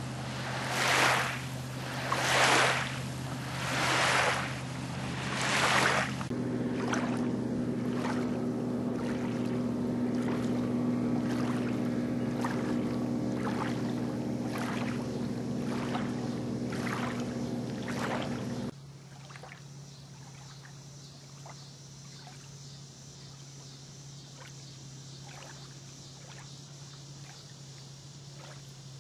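Small waves lapping on a gravel lakeshore, a wash roughly every second and a half. About six seconds in a loud steady droning hum joins and holds until it cuts off suddenly a little past halfway, leaving fainter lapping over a low hum.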